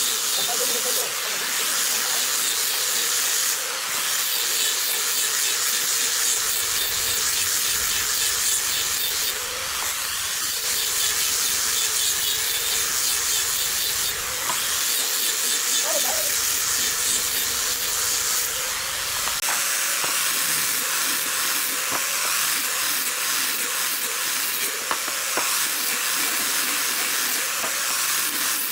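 Angle grinder fitted with a sanding pad, running steadily while sanding a pine board: a continuous hiss of abrasive on wood over a faint motor whine.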